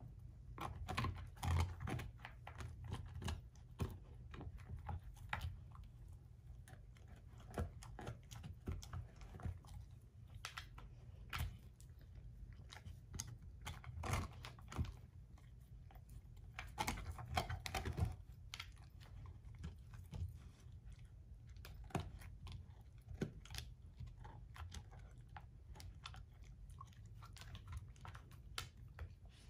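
A German shorthaired pointer chewing an air-dried, hair-on whole pig foot: irregular crunching and gnawing, with the loudest crunches about halfway through.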